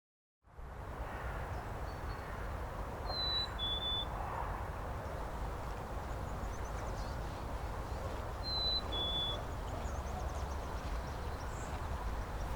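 Outdoor ambience with a steady low rumble, over which a songbird whistles a clear two-note call, the second note slightly lower than the first, twice, about five seconds apart.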